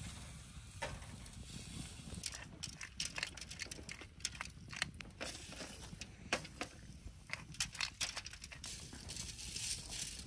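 Grilling over an open wood fire: irregular small crackles and clicks, with a steady low rumble underneath.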